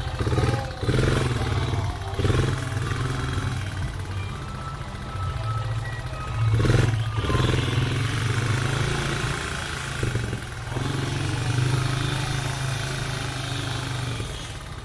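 Off-road vehicle engines (a side-by-side UTV and a four-wheeler ATV) running and revving as they drive by, surging louder about half a second in, around two seconds in and again around seven seconds in.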